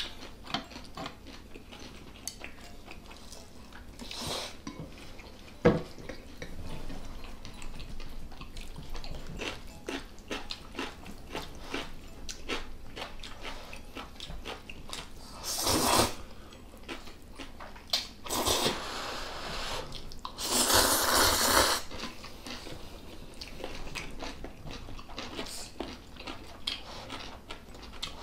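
Close-up eating sounds: chewing and slurping of Chapagetti black-bean noodles, with chopsticks clicking against bowls and the pan. Three longer slurps come a little past the middle, and there is one sharp clink about six seconds in.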